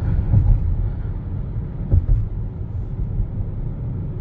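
Road and tyre noise inside the cabin of a Hyundai Ioniq 5 electric car cruising along a straight road: a steady low rumble, with two brief bumps about half a second and two seconds in.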